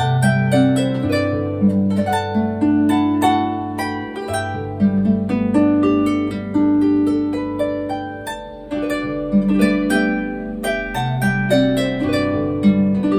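Background solo harp music: a flowing run of plucked notes over lower ringing bass notes.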